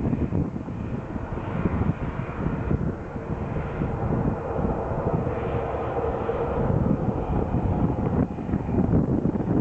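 Airliner engines passing, a steady rushing noise with a faint whine, mixed with wind buffeting the microphone.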